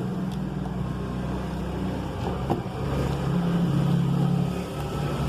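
A steady low motor drone that shifts in level a couple of times, with a single sharp click about two and a half seconds in.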